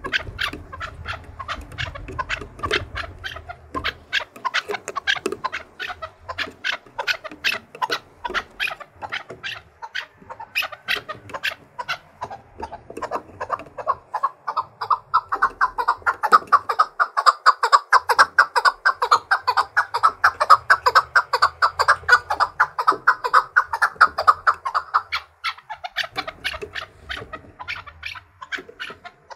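Chukar partridge calling a long series of chuck notes, a few a second at first, then building about halfway through into a louder, faster run that breaks off a few seconds before the end and starts again near the end. This is the chukar's challenge song, sung by a bird trained to sing against other partridges.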